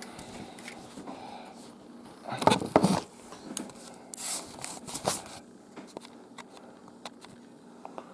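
Handling noise: rustling, scraping and small clicks as plush toys and their tags are handled, loudest in a burst of rustling a couple of seconds in and another a second or two later.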